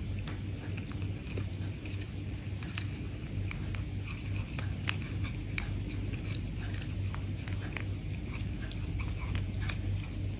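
A cat biting and chewing a chicken-and-cheese twist treat: many small crunchy clicks and crackles, over a steady low hum.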